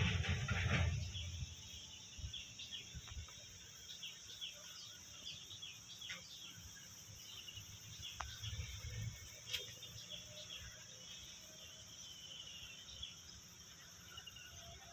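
Outdoor rural ambience: a steady high-pitched insect drone with many short bird chirps scattered through it. There is a low rumble on the microphone in the first second and again about eight seconds in.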